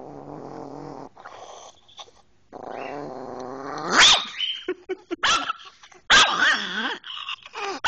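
A pet dog growling low, then a rising growl that breaks into loud barks about four seconds in, followed by several short sharp barks and yelps and a wavering, bending growl-cry. It is the grumbling protest of a dog refusing to be sent to bed.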